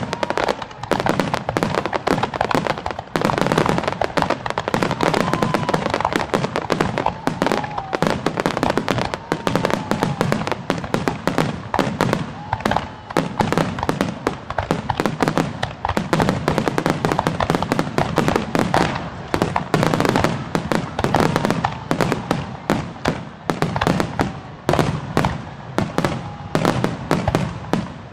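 Large fireworks display: a dense, continuous barrage of shell bursts and crackling, many sharp reports a second without a pause.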